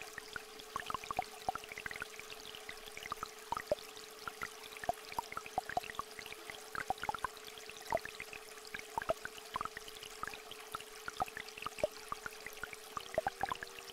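A steady pure tone held over the sound of a small stream flowing, with many irregular drips of rain. About 13 seconds in, the single tone gives way to two tones of slightly different pitch.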